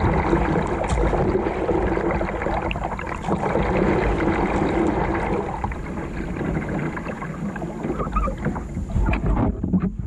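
Steady rushing noise of a kayak moving on a river, water noise mixed with wind on the microphone. It starts abruptly and cuts off near the end, followed by a few sharp knocks.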